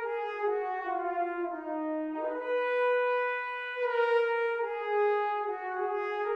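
Sampled trombone ensemble from a virtual-instrument library playing long legato notes, moving up and down in steps from one sustained note to the next with no breaks between them.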